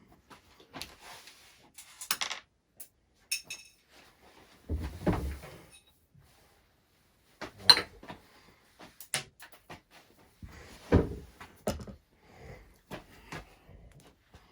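Small parts and tools being handled on a workbench: irregular clicks, knocks and short scrapes, the loudest knocks about halfway through and again near the end.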